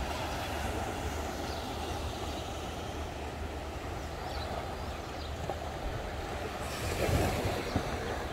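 Wind rumbling on the microphone over gentle surf washing onto the shore, with a louder rush about seven seconds in.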